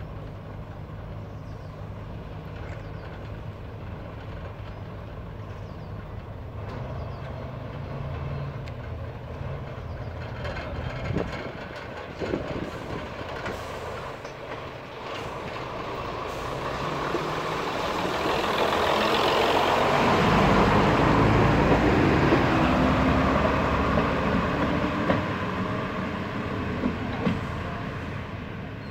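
Class 121 diesel railcar's underfloor diesel engines idling steadily. Later a diesel train's engine grows louder, is loudest about two-thirds of the way through, then fades as the unit draws away down the line.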